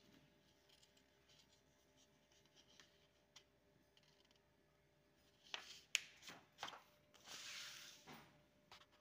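Near silence, then hands handling a paper study guide: a few sharp clicks and taps past the middle, followed by a soft paper rustle about a second long near the end.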